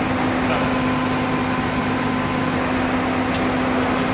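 Steady mechanical hum with a constant low tone, like ventilation or machinery running in a workshop, with a couple of faint light clicks near the end.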